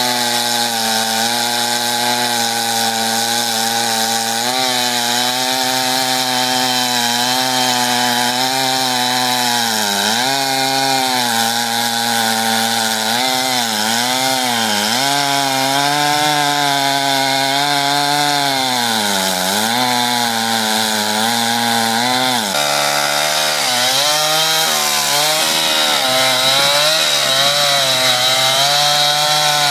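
Two-stroke chainsaw running at full throttle, cutting into the base of a tree trunk. Its engine note dips in pitch several times as the chain bogs down in the wood and then picks back up. About three quarters of the way through the note changes abruptly to a slightly different steady pitch.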